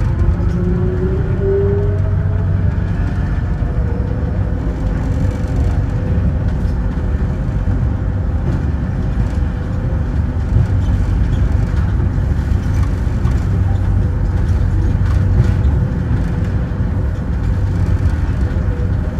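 Rubber-tyred Crystal Mover light-rail train in motion, heard riding along. The electric drive's whine rises in pitch over the first couple of seconds, then holds one steady tone over a loud rumble of tyres on the guideway, with scattered light clicks.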